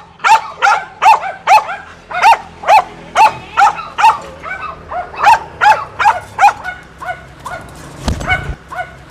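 Dog barking rapidly and insistently, two to three short barks a second, at a man reaching into its cage; the dog is frightened of the syringe. A low knock about eight seconds in.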